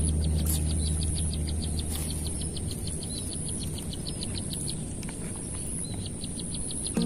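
Outdoor wildlife ambience: a fast, even run of short high chirps, roughly six a second with a couple of brief pauses, over a thin steady high whine. Low bass from music fades out in the first few seconds.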